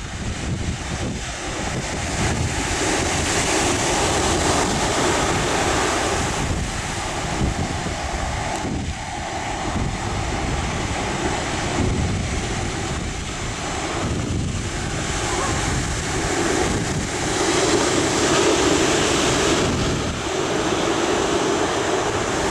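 Ocean surf breaking and washing in, with wind buffeting the microphone; the rush swells louder now and then.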